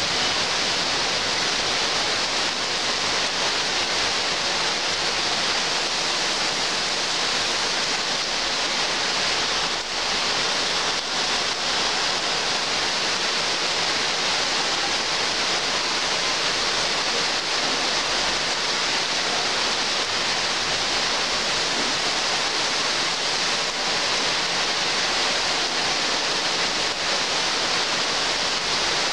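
Heavy rain pouring steadily onto leafy trees: a dense, even hiss with no letup.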